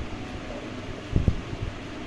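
Steady fan-like background noise, with a few soft low thumps a little over a second in.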